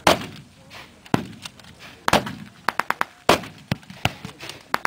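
Scattered blank rifle fire, a dozen or so sharp shots with short echoing tails. The three loudest come just at the start, about two seconds in and about three seconds in, with quicker, fainter shots between and after them.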